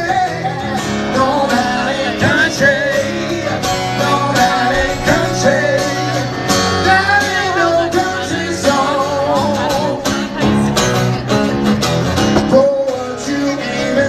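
Live acoustic country music: an acoustic guitar strummed steadily, with a man's voice singing over it at times.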